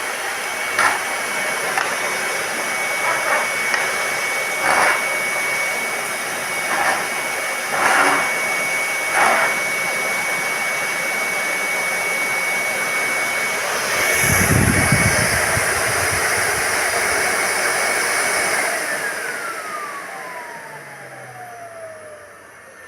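Miele S528 canister vacuum cleaner running with a steady whine and rush of air, with a few knocks and a low rumble partway through. Near the end it is switched off, and the whine falls steadily in pitch as the motor spins down.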